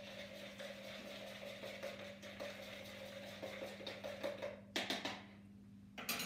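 A spoon stirring a soapy bicarbonate of soda and water mix in a plastic measuring jug: a rapid, uneven scraping and ticking of the spoon against the jug. About five and six seconds in come two brief, louder clattering sounds.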